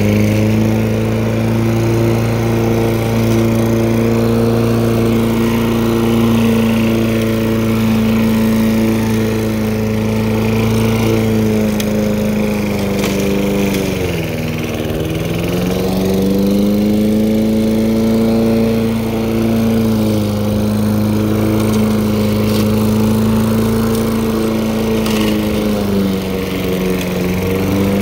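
Walk-behind gasoline lawn mower running steadily while cutting grass. About halfway through, the engine speed drops briefly and then picks back up.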